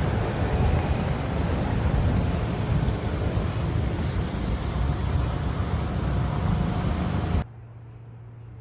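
Loud, steady road-vehicle or traffic noise, heaviest in the bass, that cuts off abruptly about seven seconds in.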